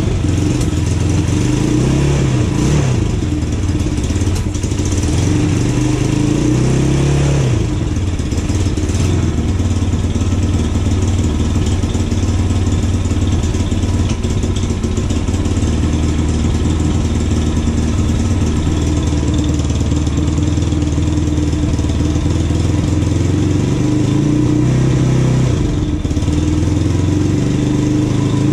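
2020 Vitacci Pentora 250 ATV engine warming up after its first start, freshly assembled. It is revved up and down a few times over the first several seconds, then idles steadily, and its pitch shifts again near the end.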